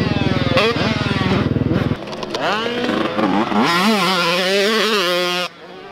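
Dirt bike engine running hard: a close, rapid firing for the first two seconds, then repeated revving, its pitch climbing and falling as the throttle is worked. It cuts off suddenly just before the end.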